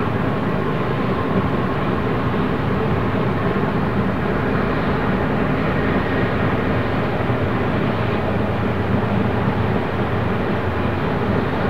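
Freight train rolling past: a steady, unbroken rumble of wheels on rail.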